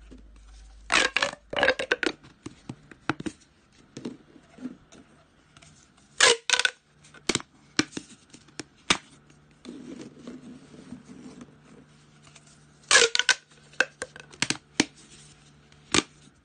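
Ribbed plastic pop tubes being bent into rings and pushed together, their corrugated sections popping and crackling in short clusters of clicks, loudest about a second in, around six seconds in and near thirteen seconds.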